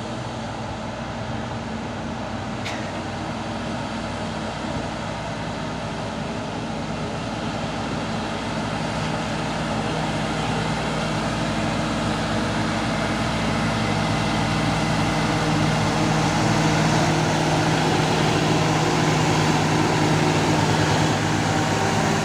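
Heavy truck engine running and growing steadily louder. About three seconds in there is a brief high falling whistle.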